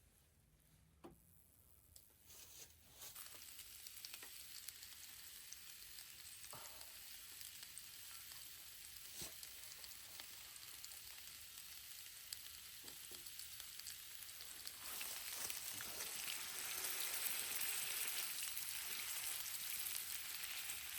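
Food frying in a pan: a steady sizzle with small scattered pops that sets in a few seconds in and grows louder about fifteen seconds in.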